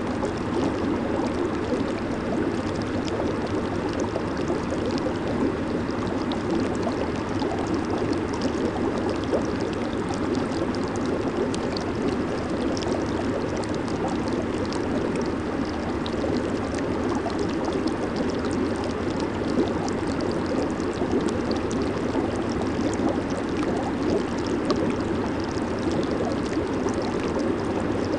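Jacuzzi water bubbling and churning steadily, with a fine crackle on top and no change throughout.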